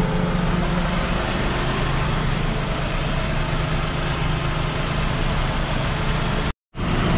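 Perodua Kelisa's small three-cylinder engine idling steadily with a constant low hum, running with the air-conditioning compressor engaged while refrigerant is charged into the system. The sound cuts out suddenly for a moment near the end.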